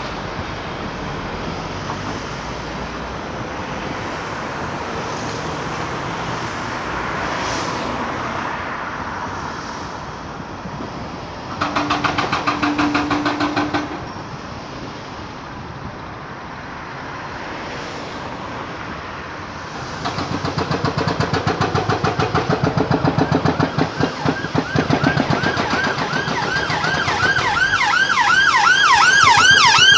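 Steady urban traffic noise, with a short pulsed tone about 12 seconds in; from about 20 seconds an emergency vehicle's siren comes in, sweeping rapidly up and down a couple of times a second and growing louder toward the end as it approaches.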